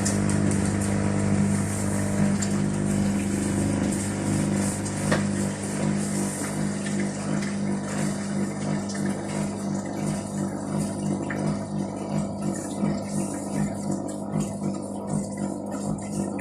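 Washing machine running as it enters its spin cycle: a steady low hum, with a regular pulsing of a little under two beats a second setting in about six seconds in.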